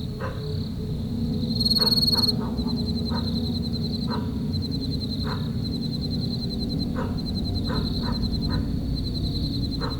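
Night chorus of frogs and insects: a steady high pulsing trill, with short frog calls every second or so and one louder trill about two seconds in.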